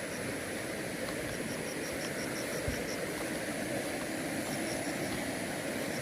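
Steady rushing of river water, with faint high chirps repeating in short even series.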